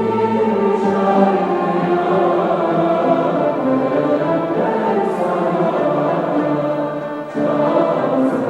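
Music with a choir singing sustained notes over instruments, with a brief dip in loudness about seven seconds in.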